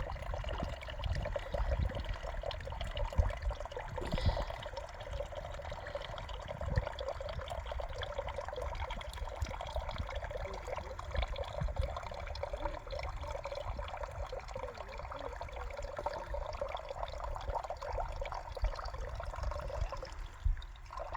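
Spring water running from a pipe and pouring steadily into a water container being filled, with a few brief knocks from handling.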